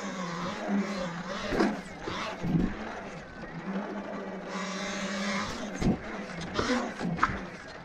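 Talaria electric dirt bike riding a pumptrack: a steady motor and drivetrain whine that dips and rises with the throttle, over tyre and rushing noise. A few sharp knocks come as it rolls over the bumps.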